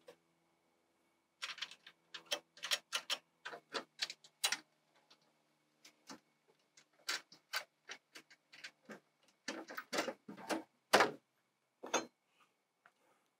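Irregular light clicks and taps of bolts and nuts being handled and fitted by hand into a metal greenhouse intake shutter frame, with a louder knock about eleven seconds in.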